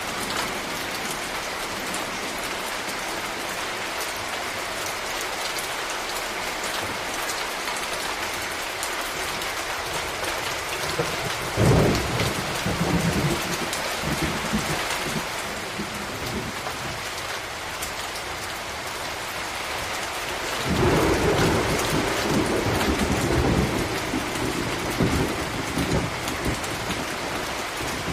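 Steady rain hissing, with thunder rumbling twice: a short roll about a third of the way in, and a longer one starting about two-thirds in that rolls on through the end.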